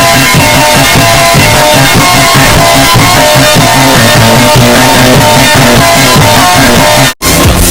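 Loud rock music with guitar and drums and a steady beat, cutting out abruptly for a split second near the end before resuming.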